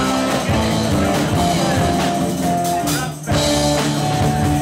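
Live rock band playing: electric guitars, bass guitar and drum kit. The music drops out for a split second about three seconds in, then comes straight back in.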